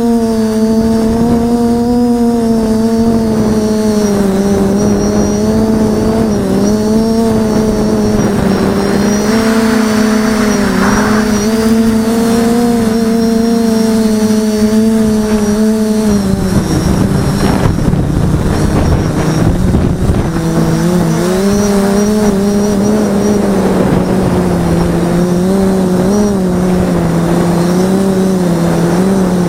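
Motors and propellers of a 550 mm quadcopter, heard from the camera on board: a steady buzzing hum whose pitch wavers with throttle. A little past the middle it drops lower and turns rough for a few seconds, then steadies at a lower pitch.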